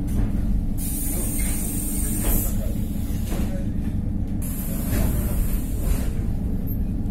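ER9M electric multiple unit running, heard from inside the carriage: a steady low rumble with regular knocks about once a second, and a high hiss that comes in twice for a second or two.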